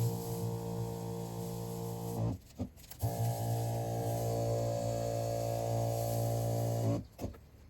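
A pesticide sprayer's pump motor humming steadily. It cuts out briefly about two seconds in and stops again near the end, as the spraying pauses.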